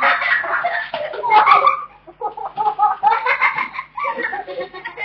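Children's high-pitched wordless cries and shouts, in short loud bursts through the whole stretch.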